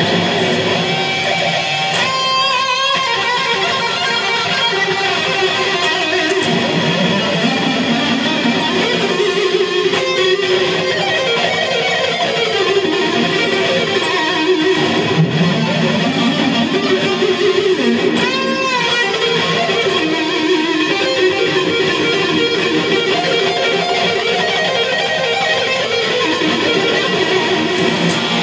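Electric guitar played continuously, with notes that waver in pitch about two seconds in and again about two-thirds of the way through.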